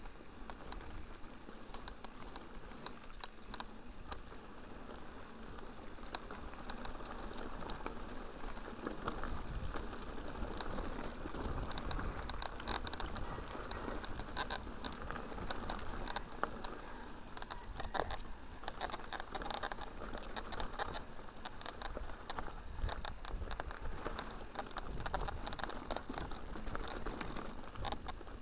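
Mountain bike rolling down a rough dirt and stone trail: tyre noise over the ground with constant rattling of the bike and many small sharp clicks and knocks as it goes over stones.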